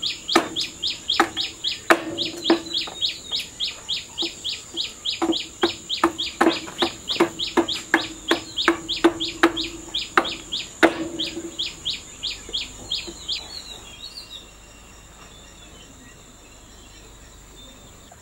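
A hammer striking a wooden-handled chisel held on a wooden block, in irregular blows for about the first eleven seconds. Over it, a bird repeats a short falling chirp about three times a second until near the end, with a steady high insect drone behind.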